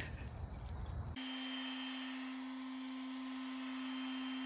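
Electric palm sander running with a steady, even hum that starts suddenly about a second in, used on the cut PVC pipe pieces.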